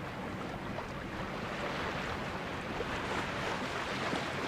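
Water rushing and splashing along the hull of a sailboat under way, with wind on the microphone.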